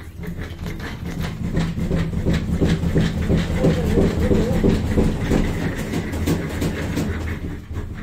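Panasonic NA-F65G7 top-loading washing machine running with a loud, rhythmic rattling and knocking rumble: the abnormal noise it is being checked for. It grows louder through the middle and eases a little near the end.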